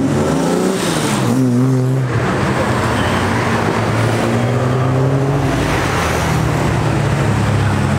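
Several cars driving past one after another, their engines revving up and easing off in pitch over a steady low engine drone.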